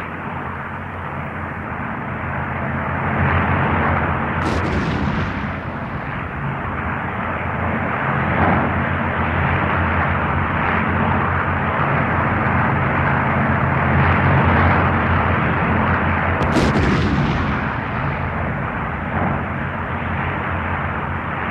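Aerial bombs exploding on a bombing range: a continuous heavy rumble of blasts, with two sharper bangs about four and a half and sixteen and a half seconds in.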